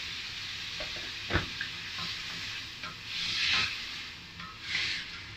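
Pork and bitter gourd stir-fry sizzling and hissing with steam in a hot stainless steel wok as hot water hits the pan, while a wooden spatula stirs. There is a sharp knock just over a second in, and louder bursts of hissing about three seconds in and again near five seconds.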